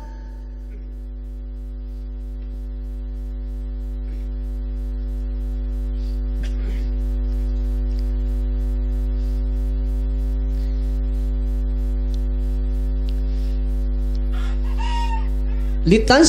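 A steady electrical hum from the microphone's sound system, made of many even tones, growing louder over the first several seconds and then holding level. A few faint short sounds rise over it near the middle and toward the end.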